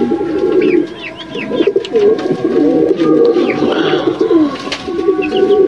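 Pigeons cooing: a low warbling coo that goes on with only brief pauses, with short high chirps from other birds over it.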